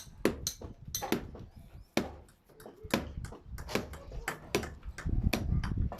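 Hammers striking timber formwork: an irregular string of sharp knocks, several a second, with a short lull about two seconds in, over a low rumble that gets louder near the end.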